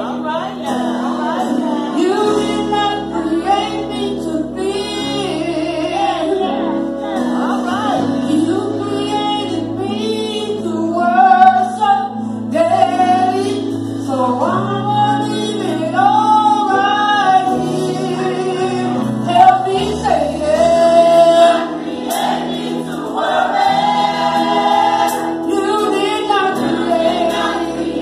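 Church choir singing a gospel song, with several voices and a female lead, over keyboard accompaniment whose bass notes are held for several seconds at a time.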